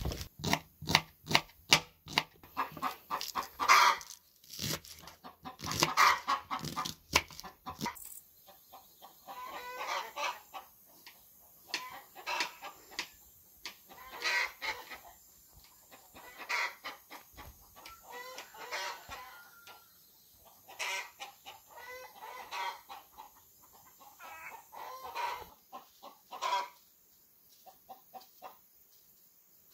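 A knife chops green onions on a wooden cutting board in quick, even strokes for about the first eight seconds. After that, chickens cluck on and off in short calls.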